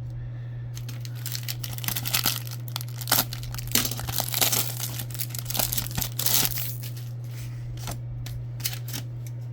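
A trading-card pack wrapper being torn open and crinkled by hand, in a run of rustling and tearing that eases off near the end. A steady low hum runs underneath.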